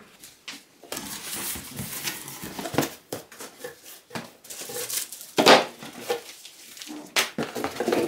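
Cardboard box being opened and unpacked: cardboard sliding and scraping, plastic wrapping rustling, and accessories knocked down onto a table in short, irregular clatters, the loudest a little past halfway.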